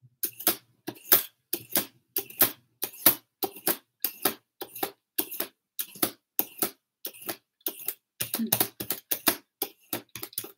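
Y-shaped vegetable peeler scraping the tough skin off the lower part of asparagus spears lying on a wooden cutting board, in quick rhythmic strokes of about three a second.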